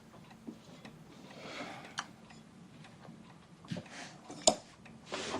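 Quiet room tone with a few soft rustles and some faint sharp clicks, the sharpest about four and a half seconds in.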